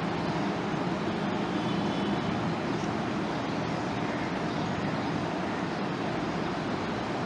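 Steady, even background noise, with the soft sound of a marker writing on a whiteboard.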